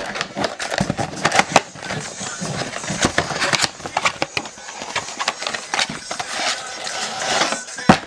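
Trading-card packaging being opened by hand: a blaster box and its foil card packs crinkling and tearing, with many quick irregular crackles and snaps.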